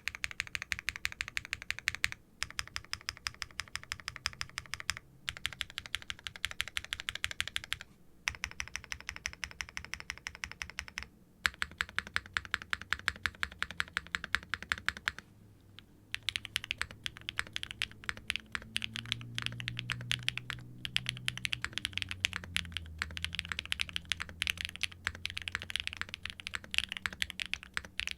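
Typing on a TKD Pt. 1/75 mechanical keyboard with Keygeek M1 linear switches, a forged carbon fiber plate and GMK double-shot ABS keycaps: a fast run of clacky keystrokes, broken by short pauses every few seconds.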